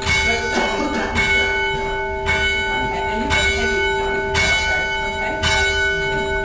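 Church tower bells rung full circle on ropes, struck one after another at about one strike a second. Each stroke's note rings on and overlaps the next, with a steady hum underneath.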